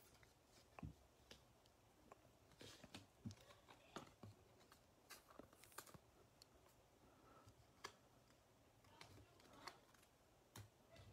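Near silence with faint, scattered clicks and rustles of trading cards being handled and shuffled by hand.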